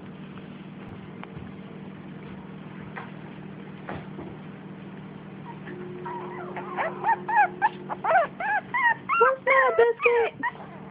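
Five-week-old Miniature Pinscher puppy crying in a quick string of short, high whines and yips that rise and fall in pitch, starting about halfway through and growing louder, over a low steady hum.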